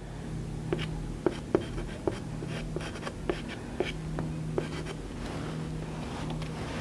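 Soft pastel stick scratching across the painting surface in short, repeated strokes, with light ticks each time the stick meets the surface. A low steady hum runs underneath.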